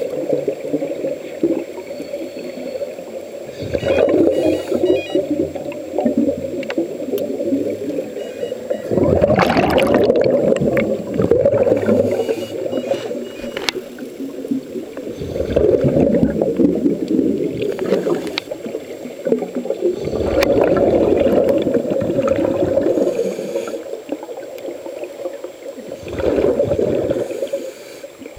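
Scuba regulator breathing heard underwater: bubbling, crackling bursts of exhaled air swelling and fading about every four to six seconds, with quieter gaps between breaths.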